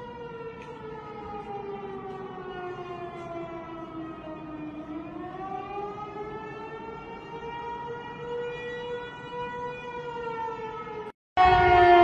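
Outdoor tornado warning siren wailing, its pitch slowly sinking for about five seconds and then rising again and holding. Near the end the sound cuts abruptly to a louder siren with a falling pitch.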